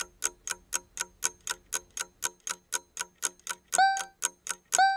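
Quiz countdown-timer sound effect: a clock ticking fast and evenly, about four ticks a second. From near the end a short pitched beep joins once a second, counting down the last seconds.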